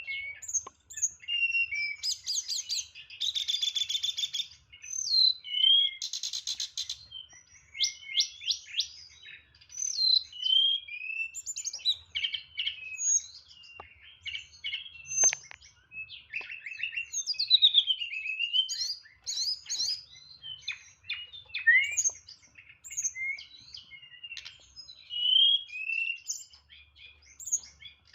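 Tledekan songbird singing a long, varied song of quick chirps, whistled notes and fast sweeping phrases, with buzzy trills about two seconds in and again around six seconds; the song is packed with mimicked fills (isian) in the clipped 'nyeklek' style.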